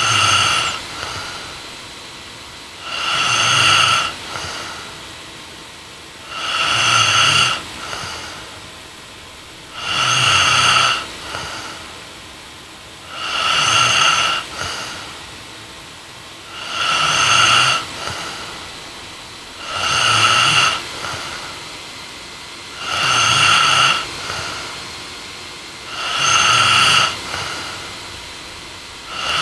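A young woman snoring in her sleep, one snore about every three and a half seconds, each lasting about a second, in a steady rhythm.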